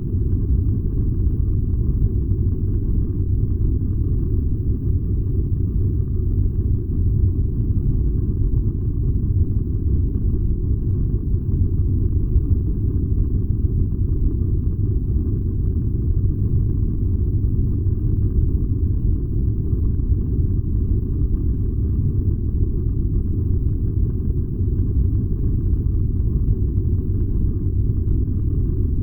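Furnace running: a steady, low rumble that does not change.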